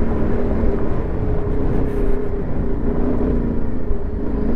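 Yamaha Ténéré 700's 689 cc parallel-twin engine running at a steady pace while riding a dirt track, with a low rumble underneath.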